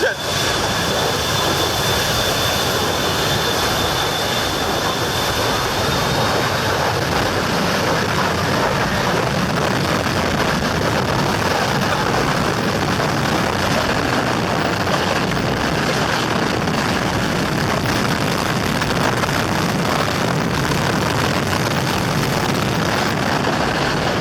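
Jet aircraft engines at high thrust: a loud, steady rush of blast noise, with a thin high whine that fades out about six seconds in.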